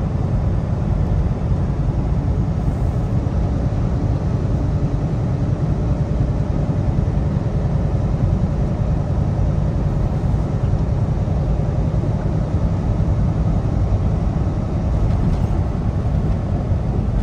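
Inside a semi truck's cab while cruising: a steady low engine drone mixed with tyre and road noise.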